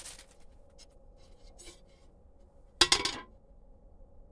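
Light handling rustle and ticks, then about three seconds in a single sharp clink with a short ring: the tempered glass side panel of a small aluminium PC case knocking against the case.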